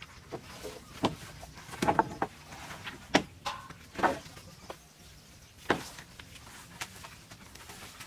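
A series of sharp, irregular knocks and clacks, about a dozen over several seconds, with the strongest a little after one, two, three and four seconds in and again near six seconds.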